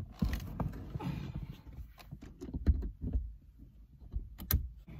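Irregular knocks, thumps and rustling of a person climbing over the seats inside a car, with a heavier thump a little past halfway and a sharp click near the end.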